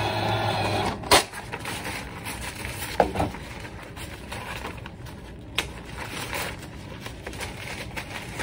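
Sink tap running with a steady hum, shut off about a second in with a sharp click, followed by paper towels rustled and crumpled while drying hands and a small plastic syringe, with a few light knocks on the counter.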